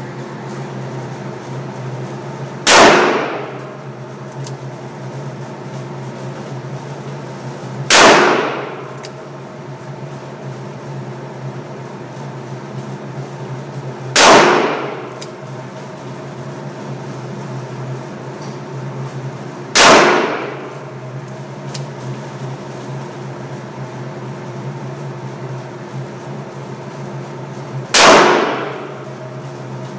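Five revolver shots from a Ruger .357 Magnum firing .38 rounds, spaced about five to eight seconds apart, each a sharp crack with a brief echoing tail, over a steady ventilation hum.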